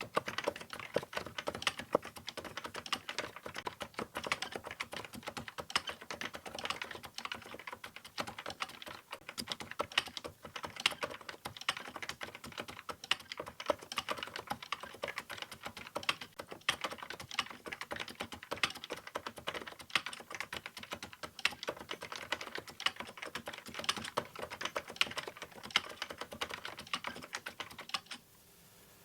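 Fast, continuous typing on a vintage JDL keyboard with Topre electrostatic capacitive rubber-dome switches, giving the muted Topre 'thock'. The typing stops near the end.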